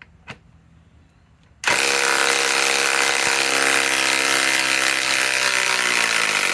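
Ryobi PSBIW25 compact cordless impact wrench driving a 5-inch lag screw: a couple of clicks, then about a second and a half in it starts hammering steadily at full speed, its pitch sagging slightly near the end as the load builds.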